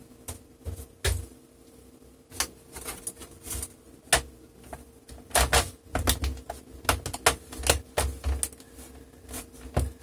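Plastic bottom cover of a Dell Inspiron 3793 laptop being set on and pressed down by hand, its clips snapping into place in a string of sharp clicks and light knocks. The clicks come thick and fast in the second half.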